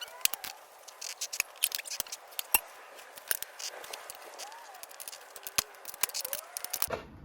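Flathead screwdrivers prying a dry-rotted tire bead off a motorcycle's rear wheel rim: irregular sharp metal clicks and scrapes against the rim, with a few faint squeaks in between.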